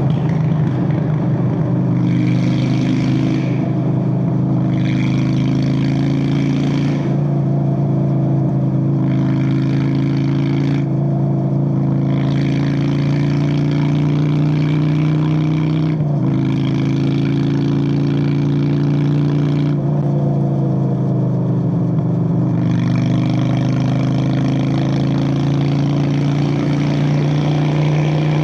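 Straight-piped Honda Steed VLX 600 (Shadow 600) V-twin running under way. Its engine speed climbs slowly and drops back several times, around a third and halfway through and again later.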